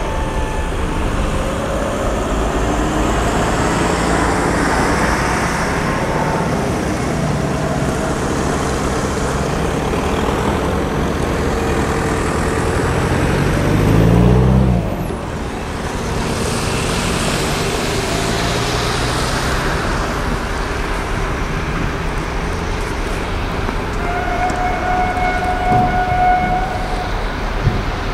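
Motor vehicle engines running and passing. About halfway through, one passes close, loudest as it goes by. Near the end there is a steady tone lasting about two seconds.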